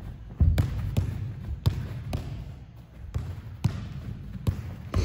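Soccer ball being kicked and received in a passing drill on artificial turf: a string of sharp kicks and first touches, about eight in five seconds.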